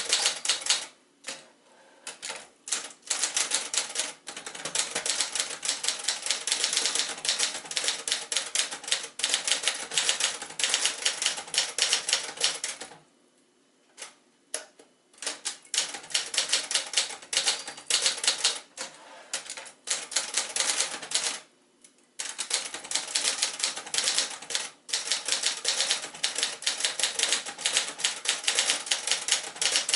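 1966 Adler J2 manual portable typewriter being typed on: rapid runs of sharp keystrokes, broken by two brief pauses.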